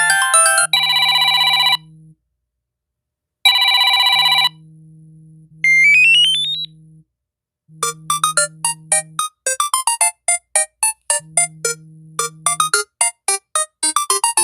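Samsung Galaxy S25 Ultra ringtones played in turn, each cut short: two identical short buzzy electronic chimes, a quick rising run of notes, then a rapid pattern of short plucked notes.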